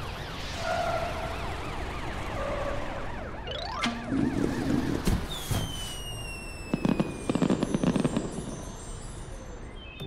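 Cartoon sound effects: a police siren wails for the first few seconds, then comes a rising whoosh and a long falling whistle, followed by crackling, fizzing sparks as two golden cannons shoot sparks into the sky.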